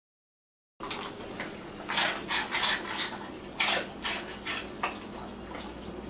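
Stainless steel dog bowl clinking and clattering in an irregular run of metallic knocks, which thins out after a few seconds.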